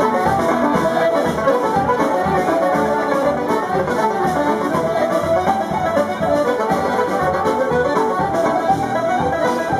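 Irish céilí band playing a set-dance tune: tin whistles, button accordion, banjo and fiddles in unison on a fast melody over a drum kit keeping a steady beat.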